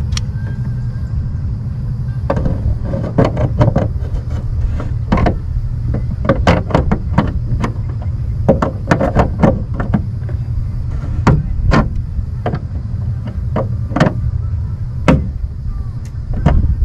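Channel-lock pliers turning and tightening a 1-inch conduit connector's nut against the aluminium jon boat hull: irregular sharp metal clicks and knocks, at times several a second, over a steady low rumble.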